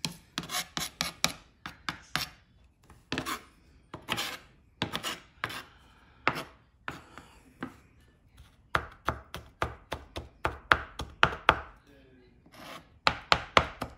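Chef's knife mincing garlic on a plastic cutting board: runs of quick chops, about four a second, with short pauses between runs.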